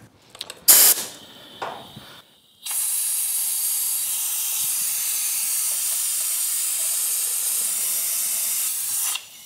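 Air-powered Mityvac Mini Fluid Evacuator: a sharp click about a second in as the shop-air hose coupler goes on, then compressed air hisses steadily through the venturi for about six and a half seconds and cuts off suddenly, drawing old coolant out of the radiator reservoir under vacuum.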